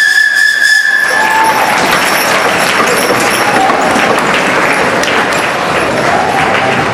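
Horse-drawn steam fire engine's steam whistle blowing one steady high note for about a second and a half, then audience applause.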